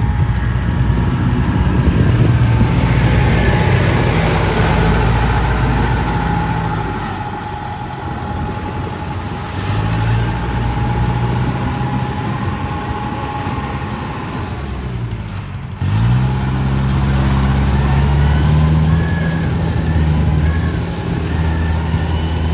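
A heavy farm machine's engine running steadily with a whine above it; about fifteen seconds in it drops off briefly, then revs back up and runs on.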